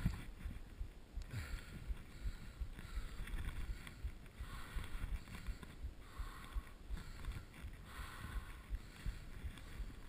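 Skis hissing over snow through a run of turns, one swish about every second and a half, over a low wind rumble on the camera's microphone.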